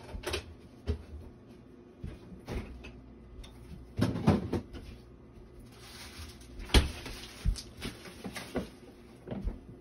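Scattered knocks and clatter of kitchen handling, with a loud cluster about four seconds in and a single sharp knock near seven seconds.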